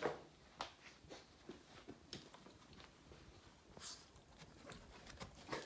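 Faint scattered taps and rustles of a Boston terrier stirring on a fabric sofa, the sharpest tap right at the start.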